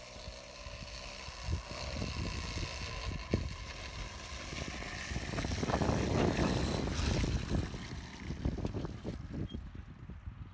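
Small moped engine buzzing as it rides along a dirt track, growing louder as it comes close and passes about six seconds in, then fading as it moves away, with a low rumbling noise underneath.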